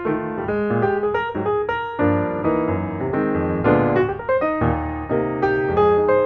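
Background piano music playing a quick, busy run of notes and chords.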